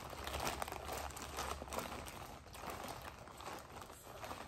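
Thin clear plastic takeout bag crinkling as a gloved hand rummages through the food in sauce inside, a continuous run of small rustles and crackles.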